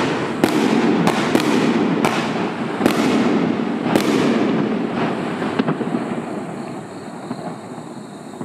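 A 28-shot consumer firework cake of 38 mm and 48 mm shells firing its last shots: about eight sharp bangs, most of them in the first four seconds and the last about five and a half seconds in, over a steady noise that fades away toward the end.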